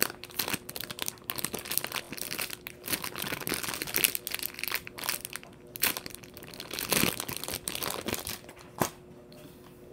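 Crinkly plastic packaging rustling and crackling in irregular bursts as it is handled and squeezed around a foam squishy toy, dying down near the end.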